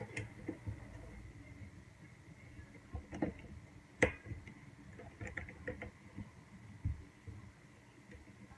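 Plastic wire egg slicer cutting hard-boiled eggs: scattered light clicks and taps as the egg is set in and the slicer is pressed shut and handled, the sharpest click about four seconds in.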